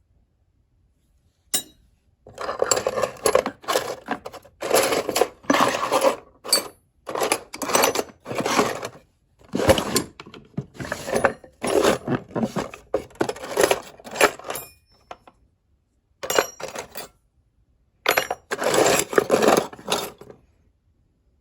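Small metal tools clinking and rattling against each other as they are handled and sorted in a machinist's toolbox, in bursts of a second or two with short pauses between.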